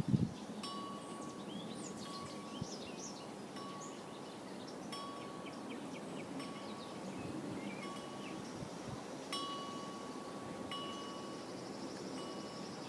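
Wind chimes ringing in irregular strikes, several clear sustained tones sounding together, with small birds chirping in between.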